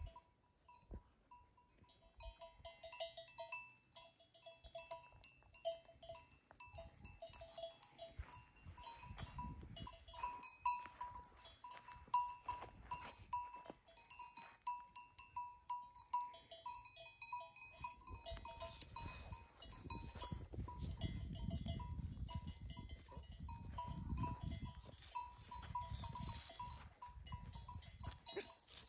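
Flock of sheep and goats with bells on their necks, the bells clinking over and over, with a low rumble from past the middle.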